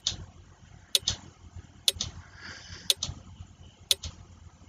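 Quiz countdown timer ticking like a clock, about one sharp tick a second, marking off the seconds left to answer.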